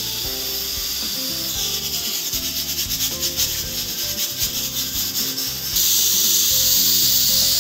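Pressure cooker's weighted valve venting steam with a hiss that flutters rapidly as the weight jiggles, then turns into a louder, steady hiss of steam pouring out near the six-second mark. The cooker is up to pressure. Background music plays underneath.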